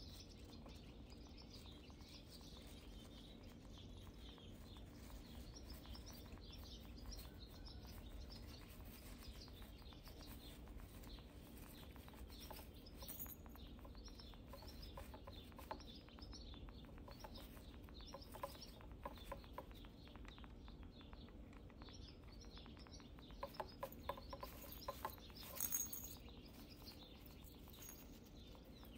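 Faint rustling and crackling of wood-shaving bedding as a hamster burrows through it, with a cluster of louder scratches and crackles a few seconds before the end.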